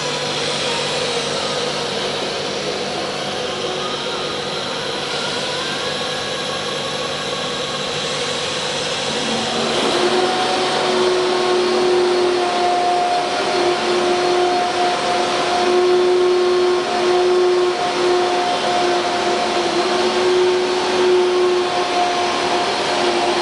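CNC wood router with an automatic-tool-change spindle running, a steady whir like a vacuum cleaner. About ten seconds in it grows louder and a steady hum-tone comes in and holds.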